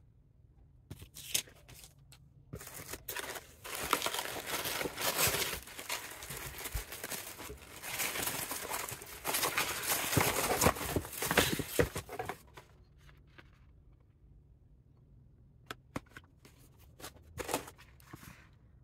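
Honeycomb kraft paper packing wrap rustling and crinkling loudly as hands pull it out of a cardboard box, from about three seconds in until about twelve seconds in. Before and after that there are a few short taps and rustles of packaging being handled.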